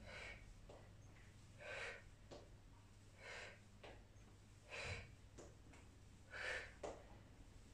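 A woman's short, faint, forceful exhalations, about one every second and a half, in time with each knee lift of a standing knee-to-elbow crunch.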